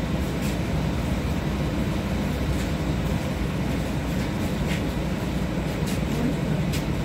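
Steady low hum of the interior of a 71-631-02.02 tram at a near standstill, with a few faint ticks.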